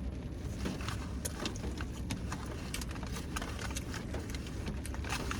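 Steady low rumble of a vehicle's cabin, with scattered small clicks and crackles.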